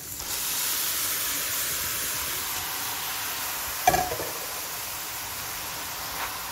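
Grated apples sizzling as they hit hot melted butter in a frying pan: a steady hiss that eases off slightly, with a single sharp knock about four seconds in.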